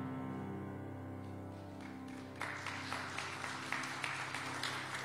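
The last held chord of a keyboard piece slowly dying away; about halfway through, the congregation breaks into applause that carries on over the fading chord.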